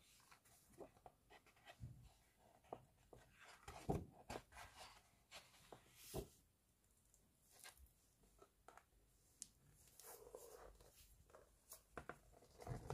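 Faint handling of a large hardcover photobook: glossy pages turned and rustling, with small taps and soft thumps, the strongest near the end as the closed cover is handled.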